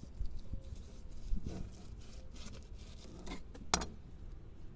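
Fillet knife slicing and scraping through a mangrove snapper fillet on a cleaning table, with light scattered clicks and one sharp click about three-quarters of the way through, over a low steady rumble.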